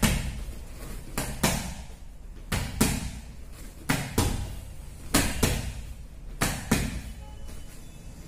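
Boxing gloves smacking against gloves and guards in a partner jab-and-counter drill. The sharp slaps come in quick pairs about a quarter second apart, a jab and then the counter, repeated roughly every 1.3 seconds.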